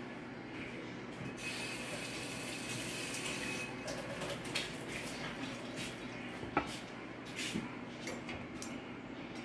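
A brief rush of running water, like a tap, for a little over two seconds starting about a second and a half in, then scattered light clicks and knocks.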